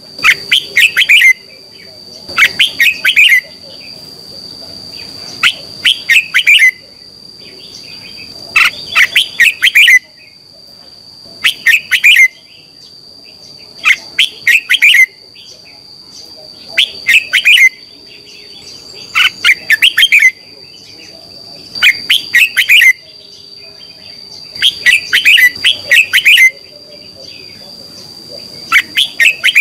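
Red-whiskered bulbul singing: loud phrases of several quick whistled notes, each about a second long, repeated every two to three seconds.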